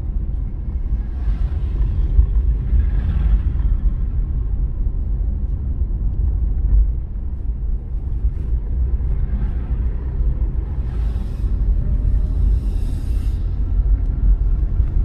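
Low, steady road rumble of a car driving on wet streets, heard from inside the cabin, with two brief hissing swishes near the end.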